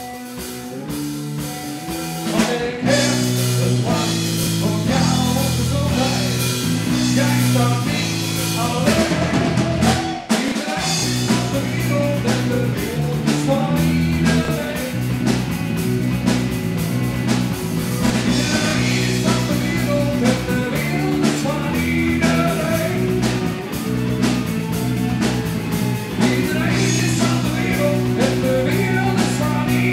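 Live rock band playing: electric guitars and a drum kit over a walking low line, with a harmonica played near the end. The music drops out briefly about ten seconds in, then the band comes back in.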